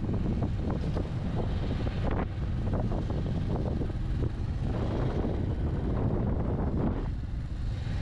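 Single-cylinder engine of a Bajaj Avenger 160 Street motorcycle running steadily while riding, with wind buffeting the microphone.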